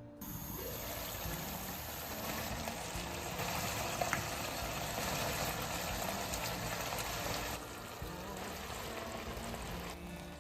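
Water running steadily from a kitchen tap, switched on at the start and easing off about three quarters of the way through.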